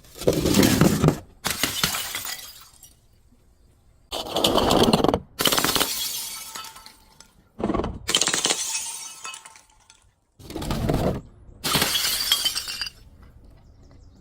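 Glass bottles breaking one after another: about seven separate crashes, each a sharp shatter that tails off into a spray of glass fragments.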